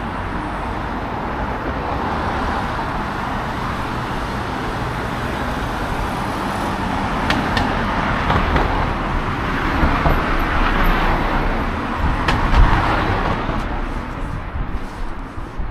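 Road traffic: car tyre and engine noise swelling and fading as vehicles pass close by, with two louder passes in the second half.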